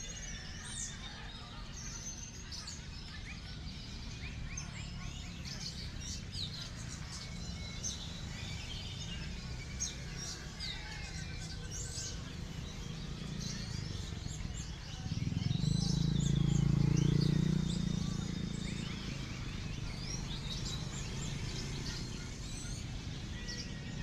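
Many songbirds singing at once, a dense mix of chirps, trills and whistles. A low rumble swells about fifteen seconds in and is the loudest sound for a few seconds before fading back.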